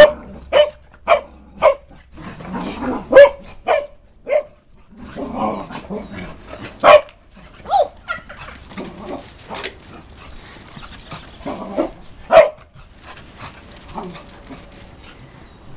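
Cavalier King Charles spaniels barking in play. A quick run of sharp barks comes in the first few seconds, then single barks follow every second or two, with rougher, lower sounds between them.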